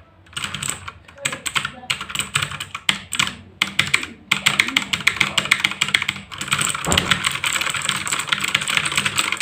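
Ant Esports MK3400V2W mechanical keyboard being typed on: scattered key clicks at first, then fast continuous typing from about four seconds in, getting denser after about six seconds.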